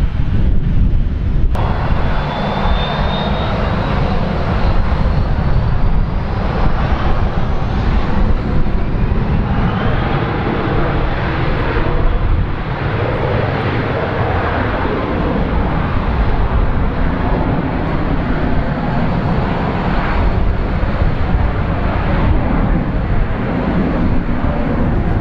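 Dassault Falcon 2000 business jet's twin turbofan engines spooling up to takeoff power: a sudden rise in noise about a second and a half in, a whine climbing in pitch over the next several seconds, then loud, steady jet noise through the takeoff roll.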